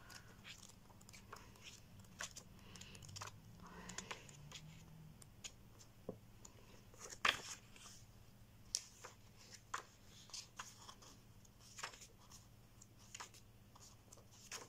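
Pages of a small paperback guidebook being turned by hand: scattered soft paper rustles and flicks, with a sharper page snap about seven seconds in.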